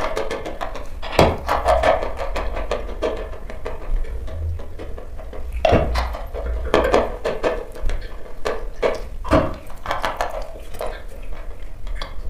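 Dry chalk lump crunching between teeth, close-miked: sharp crunchy bites and dense crackling chewing throughout, with several loud snapping bites, the first about a second in and others around the middle and later.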